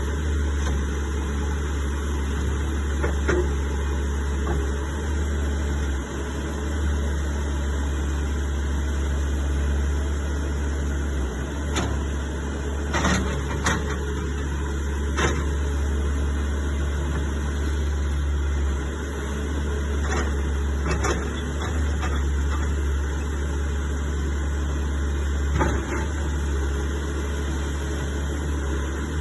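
2015 Bobcat S590 skid steer loader's diesel engine running at a steady idle, with a few brief clicks and knocks over it.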